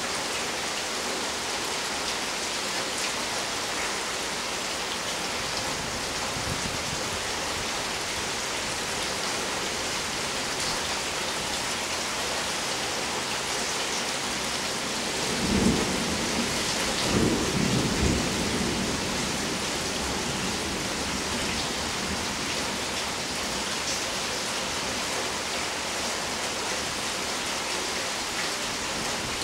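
Steady rain falling, with a crack of thunder a little past halfway that rumbles on for about three seconds.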